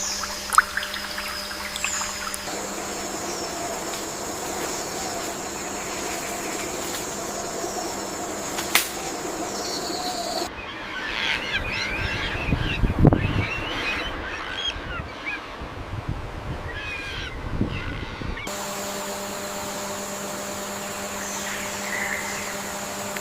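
Outdoor nature ambience that changes abruptly twice, with bird chirps through the middle stretch over a low rumble.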